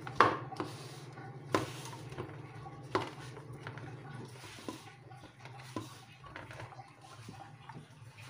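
Hands kneading stiff, crumbly dough in a stainless steel bowl: rustling and squishing of the dough, with sharp knocks of hands or dough against the steel bowl. The loudest knock comes about a quarter second in, and others about one and a half and three seconds in, over a steady low hum.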